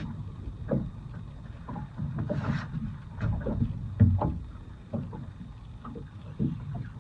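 Small waves lapping and slapping against the hull of a small boat at anchor, with a string of irregular knocks and one heavier thump about four seconds in.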